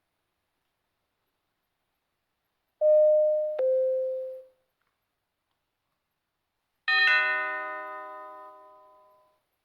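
Doorbell chimes: a two-note ding-dong, the second note lower, about three seconds in, then a few seconds later a second ringing chime of several tones that fades away slowly.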